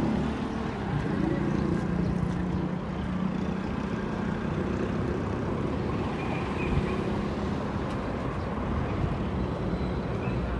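Street traffic noise with vehicle engines running; an engine hum stands out over the first few seconds and then fades into the general din.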